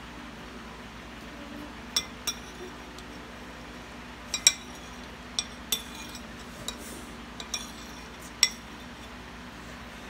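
Metal spoon clinking against plates: about ten light, irregular clinks, each with a short ring. The loudest comes about four and a half seconds in.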